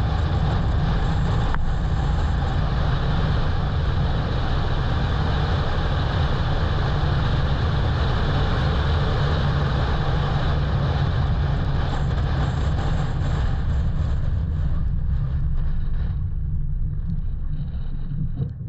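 Strong wind buffeting the microphone: a steady low rumble with a hiss over it, easing a little near the end.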